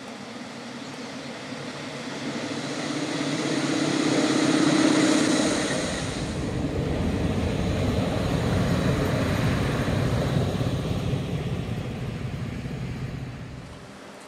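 EU07 electric locomotive running light past at close range: its motors and wheels on the rails build to their loudest about five seconds in, with a humming tone. A steady low rumble follows as it goes by, and the sound drops away sharply near the end.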